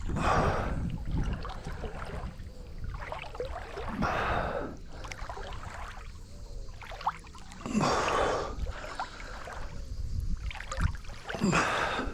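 Swimmer moving through river water: a surge of splashing and breath about every four seconds, with a low rumble of water and wind on the microphone between.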